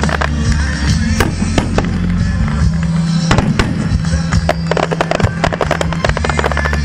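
Aerial fireworks shells bursting many at a time, with a thick crackle of sharp bangs and pops from the crackling stars, over steady music.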